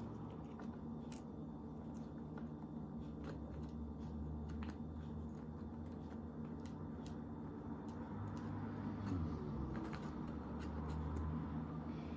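Scattered light clicks and taps of gingerbread pieces and decorations being handled and set in place, over a steady low background hum.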